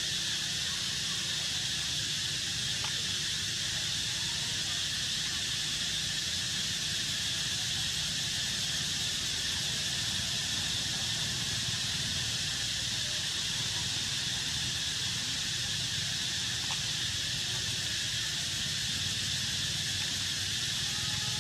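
Steady outdoor background hiss, an even high-pitched wash with a few faint ticks scattered through it.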